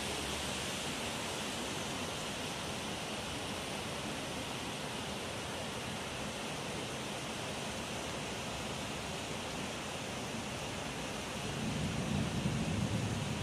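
Steady hiss of rain falling over the city. A low rumble swells near the end.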